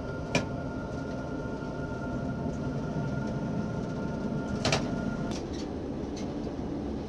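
Tram running along its tracks, heard from inside the driver's cab: a steady rumble with a faint steady whine that stops about five seconds in, and two sharp clicks, one about half a second in and one near five seconds.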